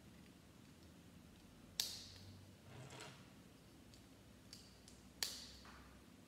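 Small plastic Lego pieces being handled and snapped together: two sharp clicks about three and a half seconds apart, with a few fainter taps between them.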